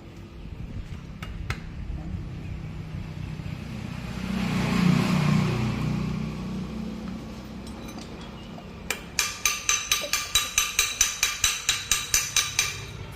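A low rumble swells and fades about a third of the way in. Then comes a fast, even run of hammer blows on metal, about five a second for nearly four seconds, each blow ringing.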